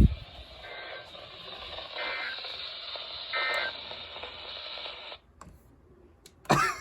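NOAA weather radio receiver hissing with static while it sends three short warbling data bursts about a second apart, the SAME digital code that marks the end of the test message. The static cuts off suddenly about five seconds in. A sharp click comes right at the start.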